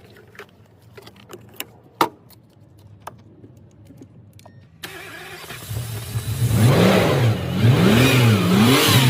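Scattered light clicks, then about five seconds in a BMW car engine is started after a new fuel pump and fresh petrol, and is revved up and down three or four times.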